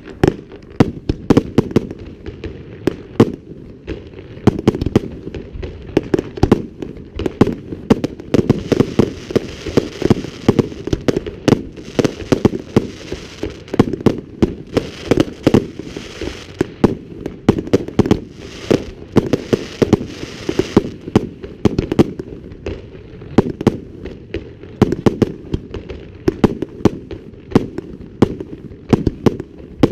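Fireworks display: a rapid barrage of bursting shells, several bangs a second, with crackling between them near the middle.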